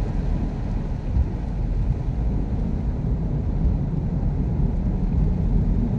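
Steady low rumble of a vehicle driving slowly through floodwater in heavy rain, heard from inside the cabin.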